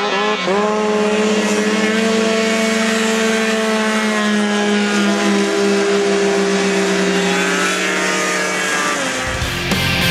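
Snowmobile engines racing at high revs, a steady running note that climbs just after the start and shifts pitch again late on as the machines pass. Rock music cuts in near the end.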